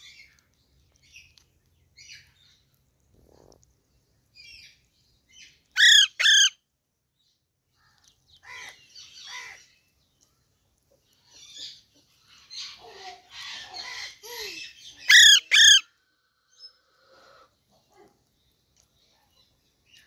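Two pairs of loud, shrill parakeet screeches, one pair about six seconds in and another about fifteen seconds in, with faint scattered chirps throughout and busier soft chattering calls from about twelve to fifteen seconds.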